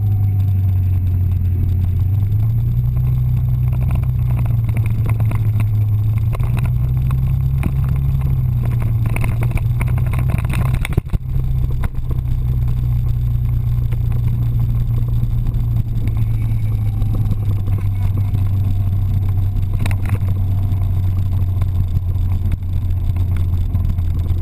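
Yamaha Vino 125 scooter's small single-cylinder four-stroke engine running steadily while riding, heard from on board as a loud low drone that rises and falls a little with the throttle.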